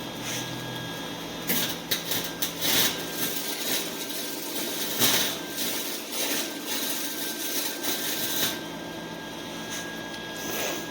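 Welding arc crackling and sputtering in irregular bursts as an exhaust pipe is welded. It starts about a second and a half in and stops near the end, over a steady background hum.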